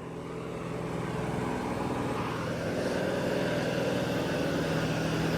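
A heavy vehicle's diesel engine running steadily with a low hum, growing gradually louder.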